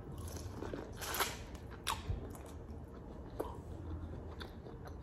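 A person biting into corn on the cob and chewing close to the microphone, with a few soft crunches and mouth sounds.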